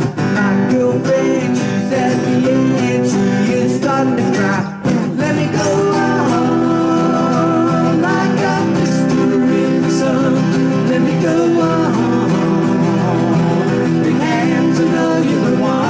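Two acoustic guitars strummed while men sing along, played live, with a brief break in the music about five seconds in.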